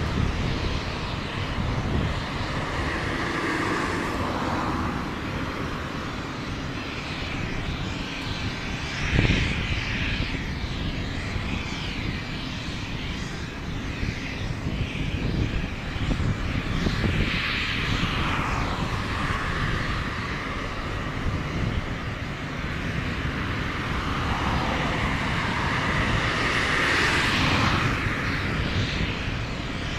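Aircraft engines running: a steady rumble with a higher whine that swells and fades three times.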